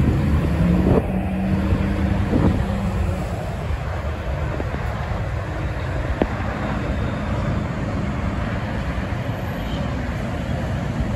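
Highway traffic noise: a steady low rumble of cars and trucks passing. A steady low hum stands out over the first few seconds.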